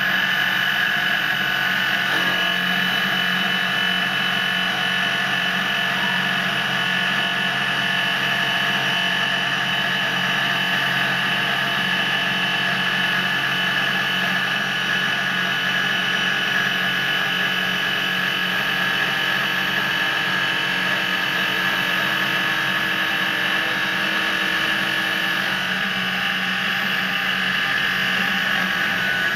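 CNC glass edge-polishing machine running, its spindle head working a wheel along the edge of a glass sheet: a steady mechanical whine with several held tones. One lower tone drops out near the end.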